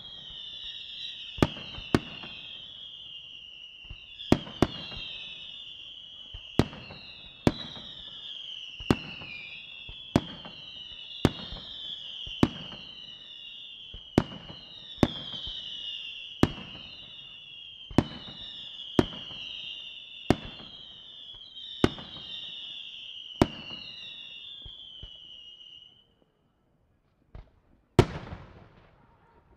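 Aerial fireworks display: a steady run of sharp shell bursts, one or two a second, over continuous overlapping whistles that slide down in pitch. The whistles stop about 26 seconds in, and after a brief lull one louder burst goes off near the end, its sound dying away slowly.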